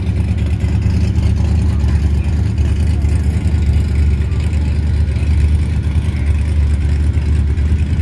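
Classic car engine running steadily with a deep, even rumble and no revving.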